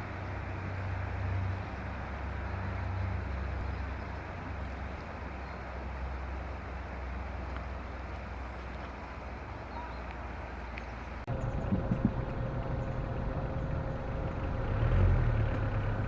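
Steady rushing wind and rolling noise on a camera carried along on a bicycle ride, heavy in the low rumble. About eleven seconds in the sound changes abruptly, with a few knocks and a faint steady tone after.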